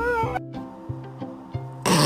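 A dog's howl gliding down and cutting off abruptly, then background music with a steady beat, and a short loud noisy burst near the end.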